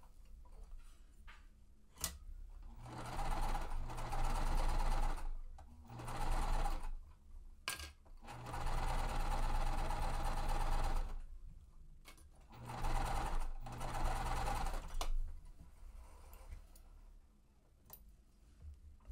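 Sewing machine stitching a quilt-piecing seam in four runs of a few seconds each, with short pauses between them. There is a sharp click before the first run and another before the third.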